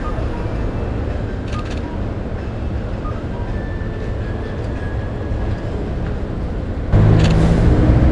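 Busy street ambience: a steady low rumble of traffic, with a short click about one and a half seconds in. About seven seconds in, a louder, low-pitched engine-like sound starts suddenly.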